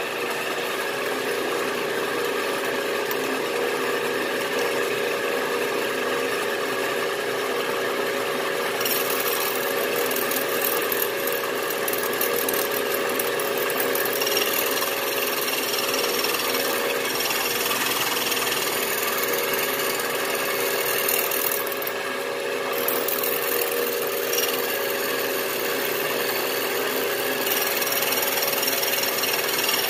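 Milling machine running a slitting saw through a half-inch aluminium plate, cutting a slot: a steady motor and gear hum with the hiss of the cut. A brighter, higher hiss joins about nine seconds in and stays.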